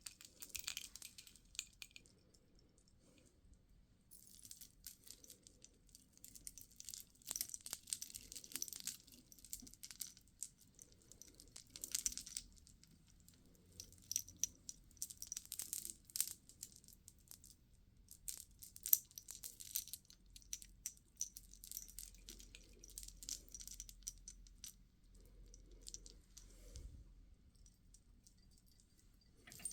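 Small beads clicking and rattling against each other as they are handled, in bursts a few seconds long with short pauses between.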